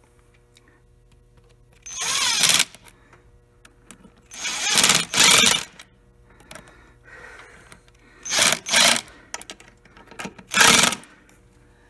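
Small cordless power driver run in about five short bursts, each lasting under a second or so, tightening the worm-drive hose clamps on the intake boot at the throttle body.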